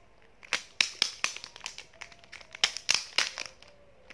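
Plastic packaging of a photocard set crinkling and crackling as it is pulled open by hand, in irregular sharp crackles and rustles.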